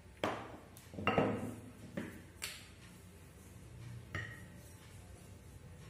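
A handful of sharp knocks and clinks of a rolling pin and utensils against a stone rolling board as dough is rolled out. The loudest comes about a second in, and the last one, about four seconds in, rings briefly.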